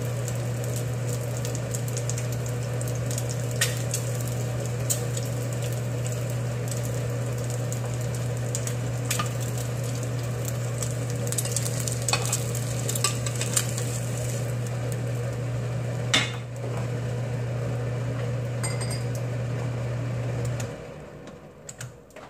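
Kimchi fried rice sizzling in a frying pan over a steady low hum, with scattered clicks of a wooden spoon and pans and one sharper knock about two-thirds of the way through. The hum stops and the sizzle dies away near the end.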